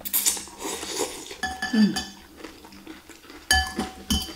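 Metal fork and spoon clinking against a glass bowl, with ringing clinks about a second and a half in and again near the end. Noodles slurped at the start.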